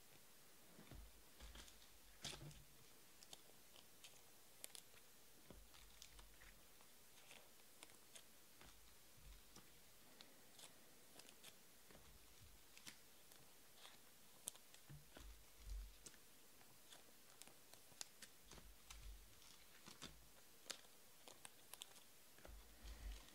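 Near silence broken by faint scattered clicks, taps and a few soft thumps of trading cards being handled and sorted on a table.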